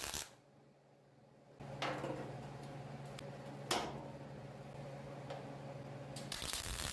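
MIG welder plug-welding sheet steel: a short burst of arc crackle right at the start and another of about a second near the end. A low, steady hum runs between the two bursts.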